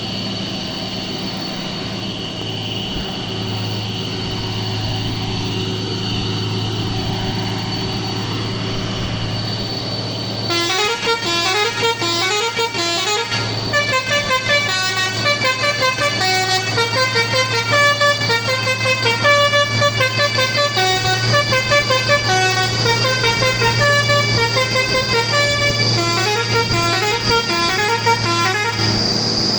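Mitsubishi Fuso PS220 turbo diesel truck's engine pulling steadily under load on a climb; about ten seconds in, a multi-note musical horn starts playing a tune over the engine and keeps going.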